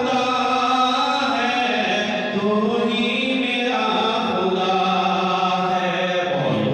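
A man singing a naat unaccompanied into a microphone, in long drawn-out melodic phrases with held notes.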